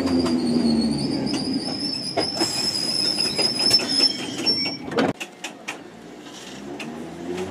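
London Underground 1972 Stock Bakerloo line train moving along the platform: a steady high-pitched wheel squeal, rising slightly in pitch, over low rumble and repeated clicks of wheels over rail joints. The squeal stops about four and a half seconds in, leaving quieter clicks.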